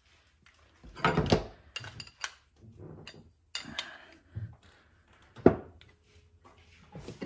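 Small metal carburetor parts and hand tools clinking and knocking together as a carburetor is put back together by hand: a run of irregular clinks and knocks, the sharpest about five and a half seconds in.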